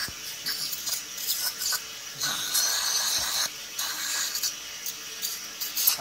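Dental saliva ejector hissing as it draws water and saliva out of the mouth during a pause in tooth scaling, the hiss swelling and fading unevenly.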